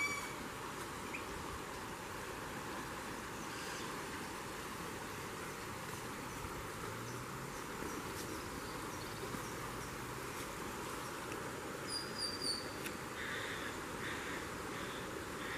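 Steady wash of noise from a muddy river flowing past. A few short, high, falling bird chirps come about twelve seconds in.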